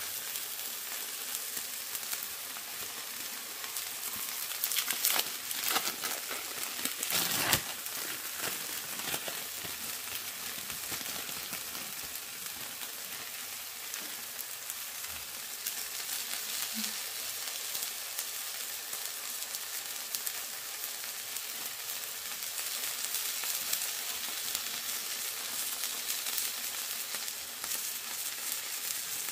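Beef smash-burger patties frying in hot oil in a frying pan: a steady high sizzle, with a few louder crackles about five to seven seconds in.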